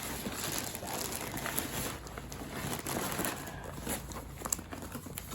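Packaging crinkling and rustling as it is handled, with scattered small clicks and knocks.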